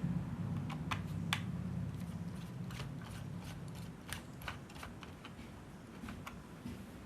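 Light, irregular clicks and taps over a low hum that fades during the first few seconds.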